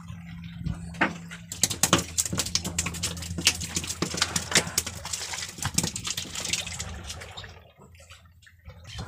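A freshly caught fish flapping and slapping against the wooden boat, a rapid patter of knocks for several seconds that dies away near the end, over a low steady hum.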